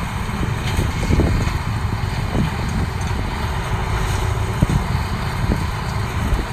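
CLAAS MEGA 204 combine harvester running steadily under load, its engine and machinery making a continuous low rumble with a few short knocks scattered through.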